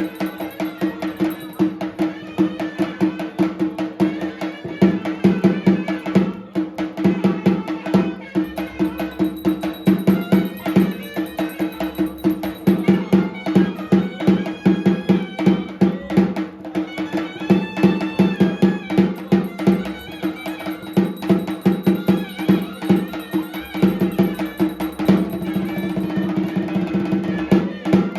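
Traditional music with fast, dense drumming and clacking percussion over a steady held drone, with a wavering melody on top.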